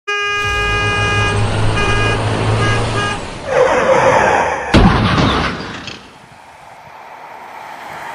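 Vehicle sound effect: a low engine rumble with a horn sounding, one long note then three short honks, followed by a rushing noise and a sharp bang about five seconds in, then fading.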